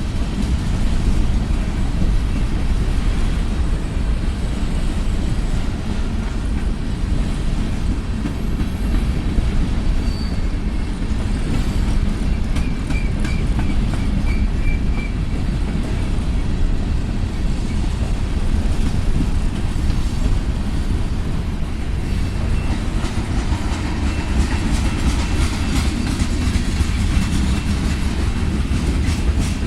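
Freight cars of a manifest freight train rolling past, a steady heavy low rumble with wheels clacking over the rails. A faint, brief wheel squeal comes in about twelve seconds in.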